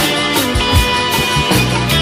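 Background music: a rock track with guitar and a steady beat.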